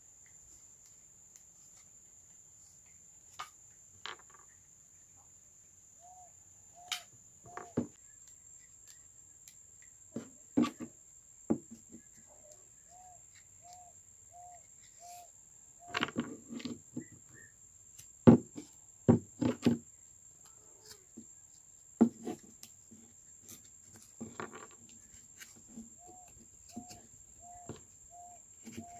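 Scattered sharp knocks and clicks of dry carnaúba-stalk wood as small wooden tuning pegs are handled and pushed into a carved mini guitar head, the loudest knocks coming in a cluster in the middle. Under them runs a steady high insect whine, and three times a short run of repeated chirps sounds at about two a second.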